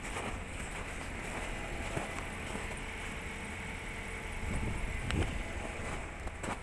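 A car running with a steady low rumble, and a few short creaks about 2, 5 and 6.5 seconds in: the unidentified squeak the owner is trying to trace.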